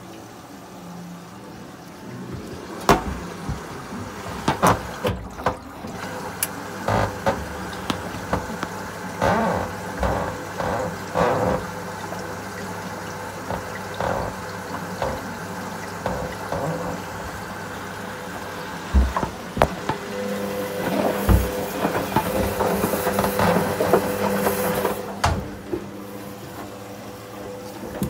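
Front-loading washing machine running mid-cycle: a steady low motor hum with water sloshing in the drum and repeated knocks and clunks. Near the end a louder rushing hiss runs for several seconds and then cuts off sharply.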